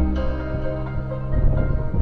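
Background music with held, sustained chords, with a rough low rumble joining in under it about two-thirds of the way through.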